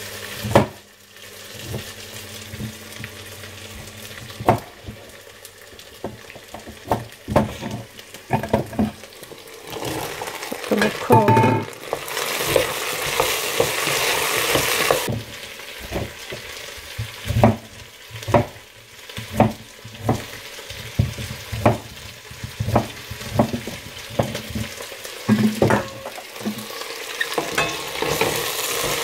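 Onions, potatoes and broccoli stems sizzling as they fry in oil in a steel pot, with many irregular sharp knocks of a knife on a cutting board and of utensils against the pot. The sizzling swells for a few seconds near the middle and again near the end.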